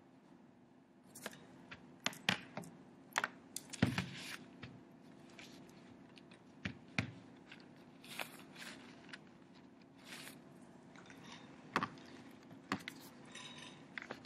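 Hand pressing and patting a folded, damp, dyed coffee filter flat onto paper: irregular clicks, taps and paper crinkles, busiest in two spells, over a faint steady hum.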